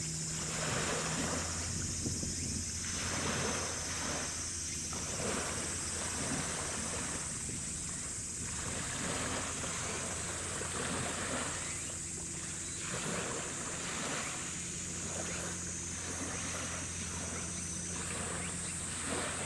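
Steady low hum of a ship's engine under wind noise and water, the noise swelling and easing every couple of seconds.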